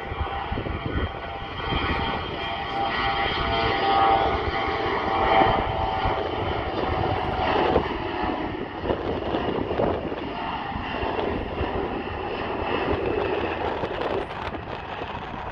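Mitsubishi CRJ-900LR regional jet on its takeoff roll, its two rear-mounted General Electric CF34 turbofans at takeoff power: a steady jet noise with a whine of several tones, loudest about five seconds in as it passes and easing off after. Wind rumbles on the microphone underneath.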